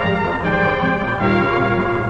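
Orchestral film-soundtrack music, with brass carrying a tune of short held notes.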